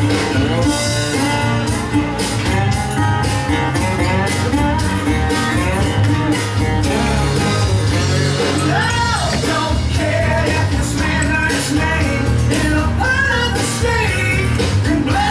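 Rock music with guitar and a singing voice over a steady beat.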